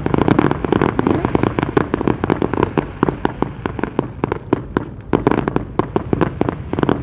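Fireworks display going off in a rapid barrage: many overlapping bangs and crackles, several a second, over a steady low rumble.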